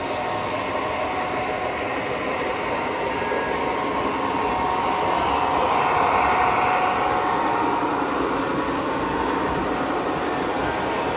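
O scale model trains running on three-rail track, a steady rolling rumble of metal wheels and motors. It grows louder about halfway through as a diesel locomotive and its freight cars pass close by.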